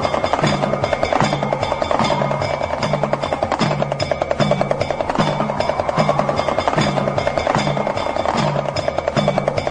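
Damru, the two-headed hand drum, rattled in a fast, steady stream of strokes over a low, repeating pulsing bass line.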